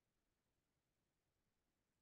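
Near silence: no audible sound, only a faint noise floor.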